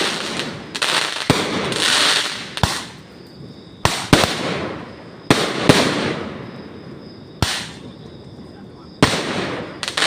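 New Year fireworks going off: sharp bangs about every second or two, each followed by a crackling, hissing fizz that dies away, with a pair of bangs close together around four seconds in.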